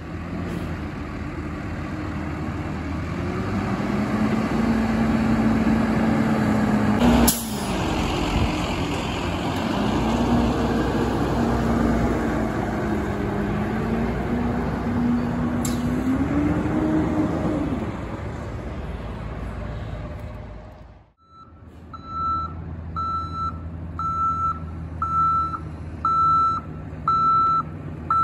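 Peterbilt asphalt distributor truck's diesel engine running as it moves slowly along, with a whine that rises and falls and a short sharp burst about seven seconds in. After a break about two-thirds of the way in, a reversing alarm beeps about once a second over a quieter engine.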